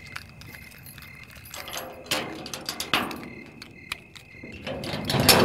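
Keys jangling and a door lock being worked: scattered metal clicks, with two longer rattling, scraping stretches about two seconds in and near the end.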